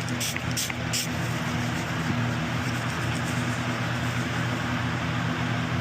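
A steady low mechanical hum with an even hiss over it, running without a break.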